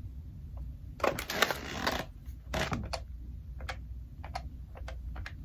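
A corded desk telephone being handled: the handset picked up with a rustle and clatter, then a run of light clicks as number keys are pressed to dial.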